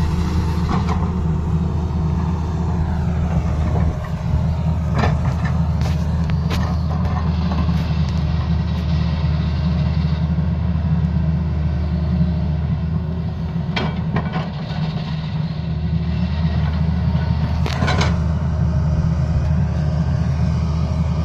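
Tata Hitachi crawler excavator's diesel engine running steadily under load as its bucket digs into a rocky hillside. Sharp knocks of the bucket against rock and stone come several times at irregular intervals.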